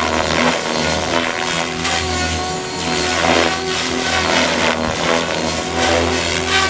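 XLpower Nimbus 550 electric RC helicopter flying 3D aerobatics: a steady motor and drivetrain whine under repeated whooshes from the main rotor blades as they load up through the manoeuvres.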